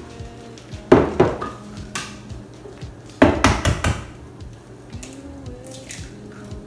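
Eggs being cracked against the rim of a mixing bowl: two sharp knocks about a second in, then a quick run of knocks about three seconds in.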